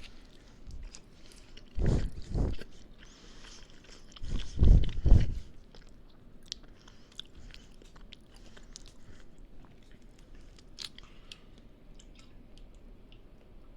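Close-miked chewing of a burrito: soft, wet mouth clicks and smacks, with two louder low thuds, the first about two seconds in and the second about five seconds in.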